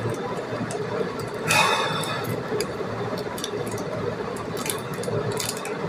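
Light clicks and ticks from a small object being handled in the hands, over a steady hum. A short, louder pitched sound comes about a second and a half in.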